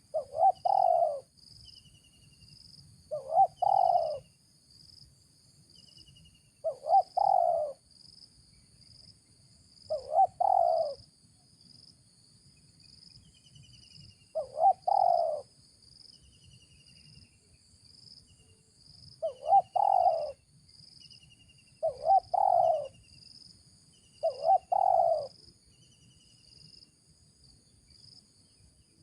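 Spotted dove (tekukur) cooing: about eight short phrases of about a second each, a few seconds apart. A steady high insect drone sounds behind them.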